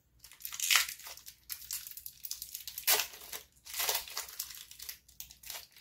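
Plastic toy packaging crinkling and rustling in irregular bursts as it is pulled off and handled, the loudest about a second in and about three seconds in.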